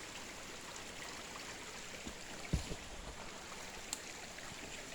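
Creek water flowing over rocks, a steady rushing, with a single soft thump about two and a half seconds in.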